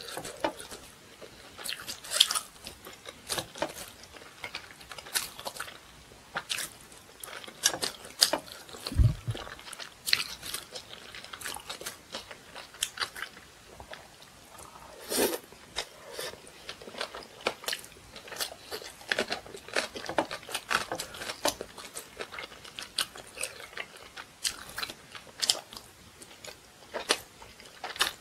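Close-up mouth sounds of eating: biting and chewing with frequent short crunches and wet clicks. A dull low thump comes about nine seconds in.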